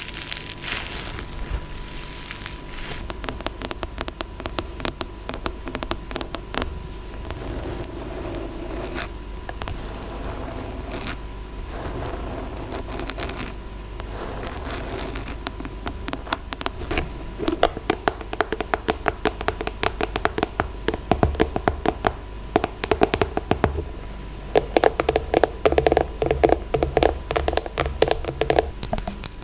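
Scratching and tapping on objects. Quick scratches with bursts of hiss come first, then fast, dense tapping and scratching that grows louder over the last few seconds.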